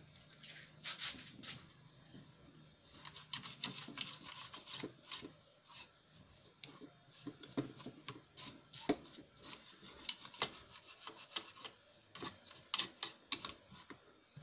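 A stiff brush scrubbing a TV circuit board in many short, uneven strokes: a scratchy rubbing sound.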